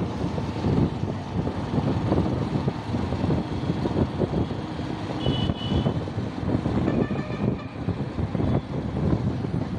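Road noise from a moving vehicle in night traffic, engine and wind rumbling steadily on the microphone. Short horn toots sound about five seconds in and again about seven seconds in.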